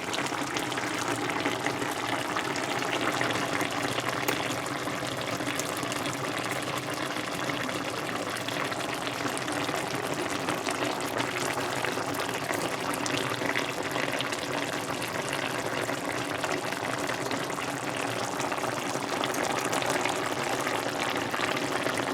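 Pot of chicken liver and gizzard curry bubbling steadily on the stove as its liquid cooks down.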